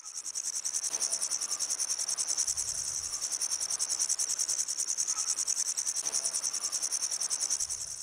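Grasshopper stridulating: a continuous, steady high-pitched chirring made of rapid, evenly repeated pulses.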